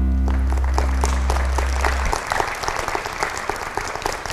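Audience applauding, with dense, irregular handclaps. A held chord of closing music sounds under the clapping and cuts off suddenly about two seconds in.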